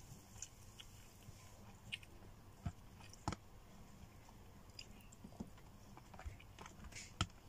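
Close-up sounds of someone eating with her hands: chewing and mouth noises, with scattered sharp clicks and taps as her fingers pick food from plastic containers, the loudest a little after 3 seconds in and near the end.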